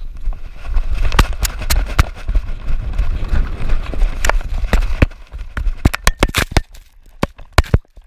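Dog-mounted action camera jolting on a running giant schnauzer: irregular sharp knocks and clatter with the strides, over a low rumble of wind and fur rubbing the microphone.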